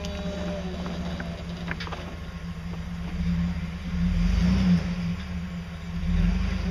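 Off-road 4x4's engine running at low revs while rock crawling. The throttle comes up about four seconds in and again near the end.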